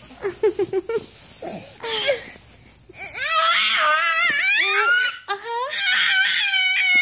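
A toddler's voice: a quick run of short giggles, then from about three seconds in long, loud, high-pitched happy shrieks that waver up and down in pitch, with one short break. He is trying out how loud his voice can be.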